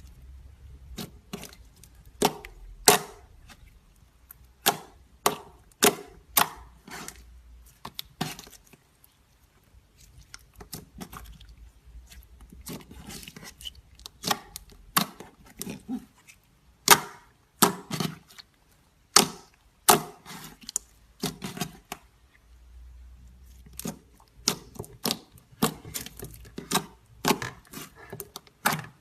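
Slime being worked by hand, giving irregular sharp clicks and pops, about one or two a second, with a couple of short pauses.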